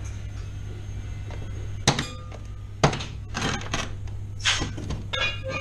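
Firebricks and metal tools being knocked and slid about on a torch hearth's bench by a gloved hand. Two sharp knocks about two and three seconds in are followed by a run of scraping and clattering, over a steady low hum.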